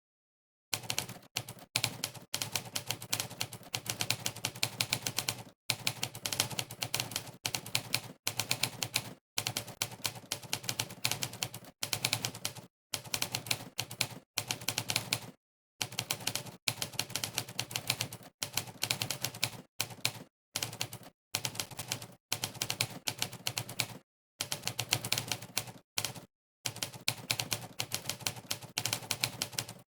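Monkeytype's typewriter keypress sound effect, one typewriter-key clack per keystroke, firing in fast runs of typing. The runs break off for brief moments of total silence between bursts.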